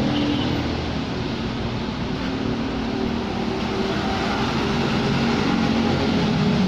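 2015 Honda Accord's 3.5-litre V6 engine running steadily.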